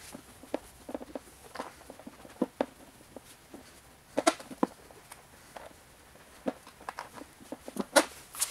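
Microfiber cloth wiping and rubbing a removed snowmobile plastic side panel, with irregular short rubs and knocks as the panel is handled on the concrete floor; the loudest clusters come about four and eight seconds in.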